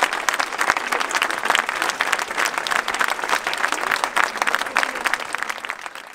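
Audience applauding, a dense patter of many hands clapping that thins out and dies away in the last second.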